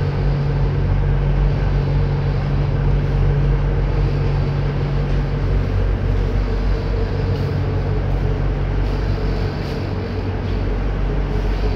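A ship's engines running steadily under way, heard as a low drone inside the wheelhouse. One of its low tones drops away about halfway through.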